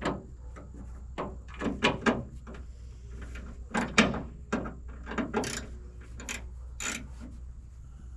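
Irregular clicks and knocks of hand tools and metal hardware being handled while screws are driven into a truck tailgate, about a dozen separate strokes with uneven gaps.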